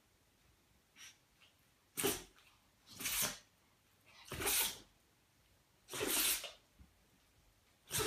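Small Chihuahua-mix dog sneezing in a fit: four sharp sneezes about one to two seconds apart, with another starting at the very end and a faint sniff about a second in.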